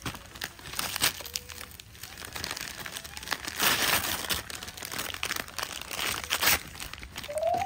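Gift wrapping paper being torn off and crumpled by hand, in irregular rips and crinkles. The loudest tears come a little past the middle and again later on.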